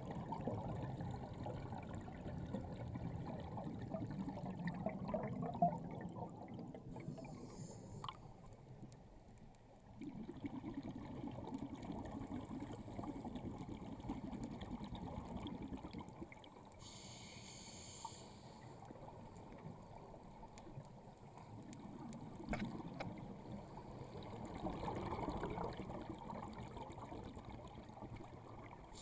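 Scuba diver breathing through a regulator underwater. Three long bubbling rushes of exhaled air alternate with two short, higher-pitched hissing inhalations.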